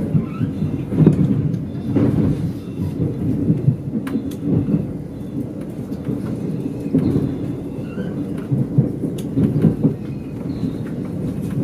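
Low, uneven rumble of a Stadler FLIRT diesel train heard from inside the passenger car as it runs along the track, with a few sharp clicks from the wheels over the rails.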